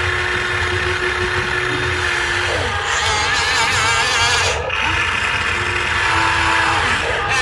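Small electric motors of radio-controlled construction vehicles whirring, twice rising in pitch, holding and winding back down.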